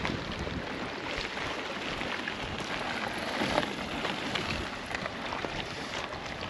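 Strong wind rushing across the lake and buffeting the microphone, a steady rough rush with no clear events in it.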